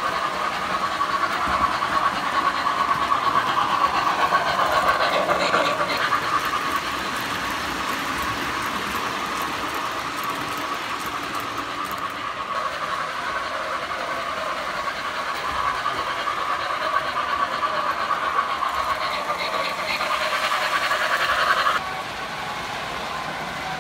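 Three-rail O-gauge model train running on the layout track, a steady mechanical running sound that drops suddenly in level near the end.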